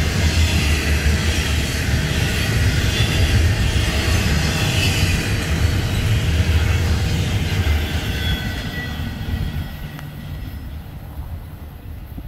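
Double-stack container freight cars rolling past on the rails, a steady loud rumble of wheels on track that fades from about ten seconds in as the end of the train moves away.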